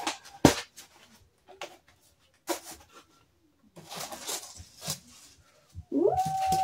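Cardboard box being handled and opened by hand: a few sharp knocks and rustling of cardboard flaps and packing. Near the end a person gives a rising, drawn-out 'ooh' of delight.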